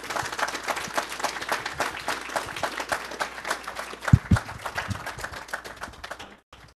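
Audience applauding, a dense patter of many hands clapping that thins toward the end and then cuts off abruptly. A low thump is heard about four seconds in.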